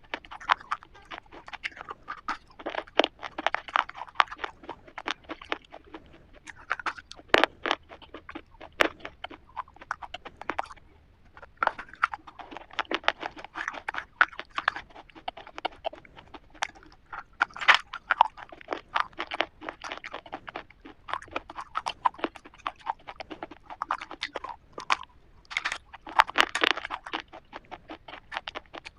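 Chewing and crunching of a chocolate-coated KitKat wafer bar: a dense, irregular run of crisp crackles and bites.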